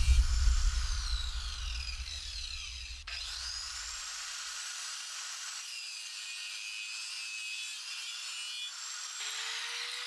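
Hand-held electric circular saw: its motor whine falls off as it winds down, then about three seconds in it starts again with a sharply rising whine, runs steadily, and winds down again near the end.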